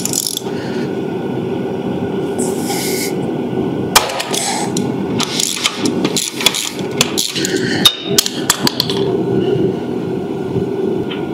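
Ratchet wrench with a 12 mm socket clicking and tapping on a generator's oil drain bolt as the bolt is loosened. There is a loud sharp click about four seconds in, then a run of quick irregular clicks, over steady background noise.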